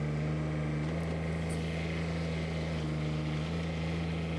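Toro Dingo 320D mini skid steer's little three-cylinder Kubota diesel engine running steadily with a low, even hum.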